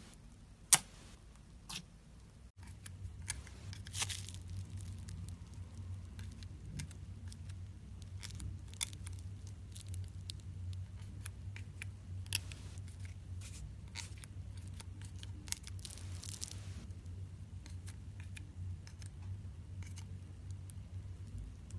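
Hands playing with slime: scattered sharp clicks and short crackling pops. A low steady hum sets in about two and a half seconds in.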